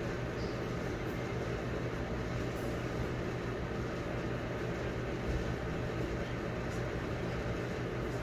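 Steady low mechanical hum with an even hiss, unchanging throughout.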